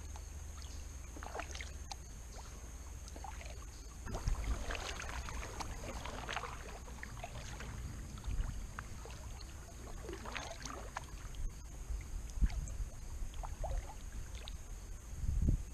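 Kayak paddle strokes: the blades dipping and pulling through calm water with splashing and dripping, in spells about four to seven seconds in and again around ten seconds. A few dull low thumps follow near the end.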